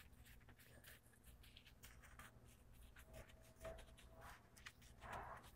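Near silence, with a few faint, scattered soft scrubbing sounds from a wash mitt rubbing over a foam-covered alloy wheel.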